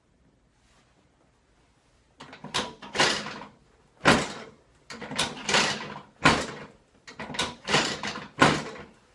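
Chiropractic adjusting table clacking and thumping as it is set up and moved. There is a quick run of loud knocks, a dozen or so, starting about two seconds in.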